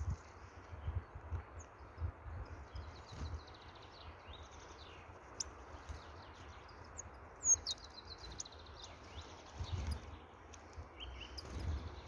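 Small songbirds (great tits and nuthatches) giving short, high calls and chirps, with a louder call about seven and a half seconds in followed by a quick run of high notes. Low rumble and thuds on the microphone underneath.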